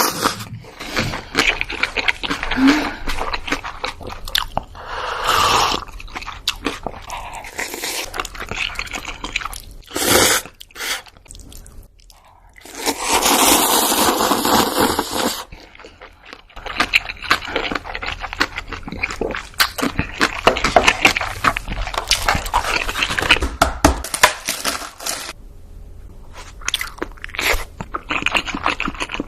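Close-miked eating sounds: crunchy food being bitten and chewed, with irregular crackling and clicks and several louder stretches of crunching.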